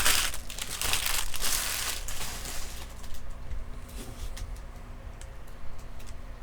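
A trading card pack wrapper being torn open and crinkled, loud for the first two seconds and dying away by about three seconds in, followed by light clicks of cards being handled.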